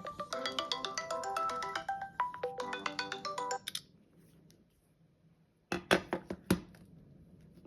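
Google Duo incoming-call ringtone on a Samsung Galaxy phone playing a bright stepped melody, which stops about three and a half seconds in. About two seconds later come three or four sharp knocks.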